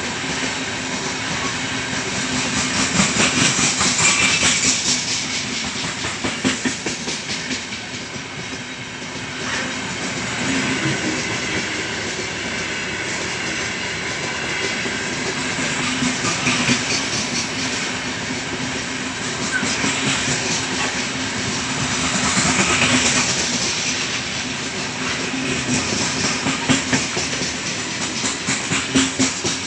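Freight train of open gondola wagons rolling past close by, a steady rumble with wheels clattering over rail joints. With the train braking, a high hiss of brake shoes on the wheels swells up several times.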